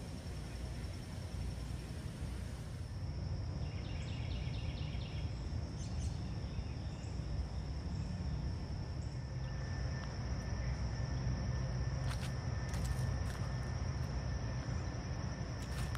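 Outdoor ambience of insects calling with a steady high trill over a low rumble. A few short chirps come about four seconds in, and there are a few faint clicks near the end.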